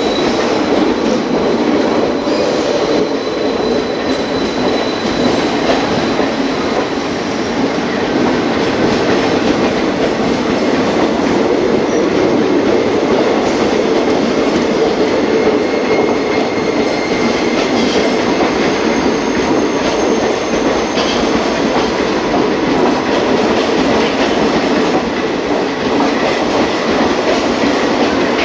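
Coaches of a long Indian Railways passenger express, the Sewagram Express, running past on the rails, a loud steady rolling noise of wheels and carriages with no horn.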